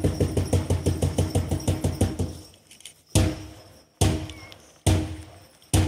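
A drum beaten rapidly and evenly, about six beats a second, which stops about two and a half seconds in. It then gives four single heavy beats, a little under a second apart, each ringing briefly.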